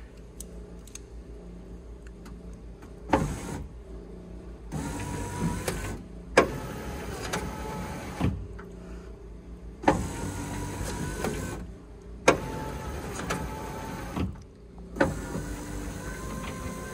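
Rebuilt power window motor of a 1973 Chrysler Imperial (Mopar C-body) driving the door glass through its regulator, switched on and off in about six short runs of one to two seconds. Each run starts with a sharp clunk and carries a steady motor whine. The motor, fitted with new gears, is working again after reassembly.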